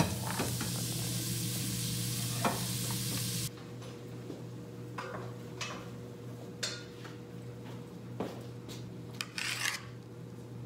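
Kitchen cooking sounds: a steady sizzling hiss that cuts off suddenly about three and a half seconds in, followed by scattered light clinks and knocks of utensils and dishes.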